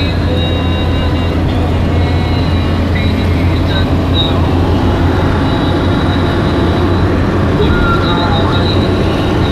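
Steady road and engine noise heard inside a car's cabin cruising at motorway speed: a low hum under an even hiss of tyres on asphalt.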